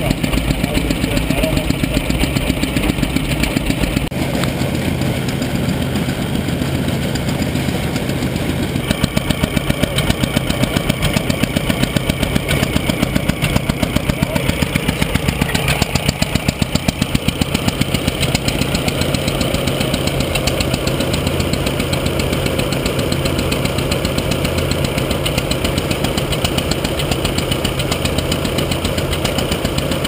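Quarter-scale Advance Rumely OilPull tractor engine running with a steady, regular beat while belt-driving a scale threshing machine, with machinery clatter under it. The beat gets louder about nine seconds in.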